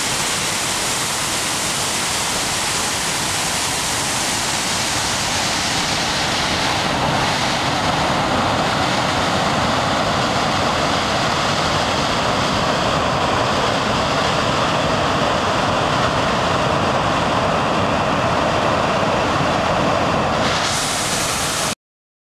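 Fast, high mountain river in heavy snowmelt runoff, water rushing over rapids and a waterfall as a steady, loud rush. It cuts off suddenly near the end.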